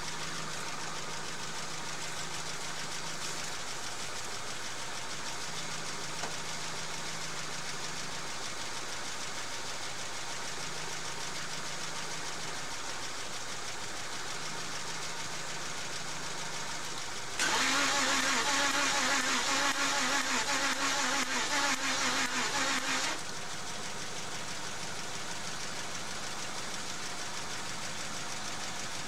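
Volkswagen Passat engine turned over by its starter for about six seconds, with a rhythmic pulsing beat, during a compression test on cylinder one. It is a no-start engine on a low battery that the owner judges to have little compression, and it does not fire.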